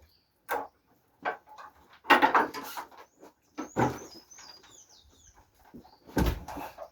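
Scattered knocks and thumps, the loudest about two seconds in and a heavy one near the end. A bird chirps a quick run of short, high, falling notes in the middle.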